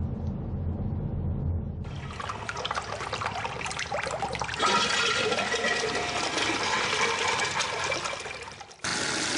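A urinal flushing: water rushes and swirls down the bowl. It starts suddenly about two seconds in, gets louder midway and dies away near the end. Before it comes the low rumble of a car driving, and at the very end a tap cuts in, running steadily.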